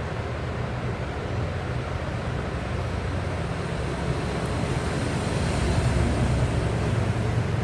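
Hot air rework station blowing a steady stream of air while heating the earbud's glue, growing a little louder about five seconds in.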